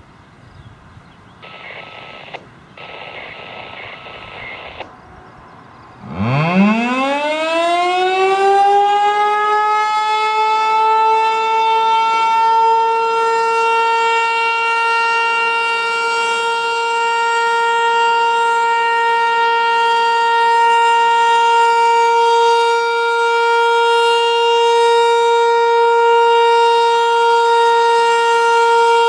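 ASC T-135 AC/DC outdoor warning siren starting up about six seconds in. Its pitch winds up quickly from a low growl, then it holds one steady, loud wail.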